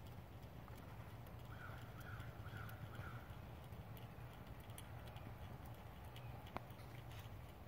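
Faint outdoor quiet over a steady low hum. A bird gives four short calls about a second and a half in, and scattered faint ticks and taps run through it.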